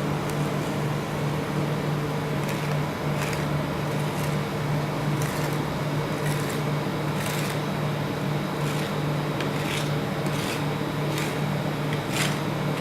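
Rolled-ice-cream cold plate machine humming steadily, with metal spatulas scraping and tapping on the frozen plate at irregular moments about once a second.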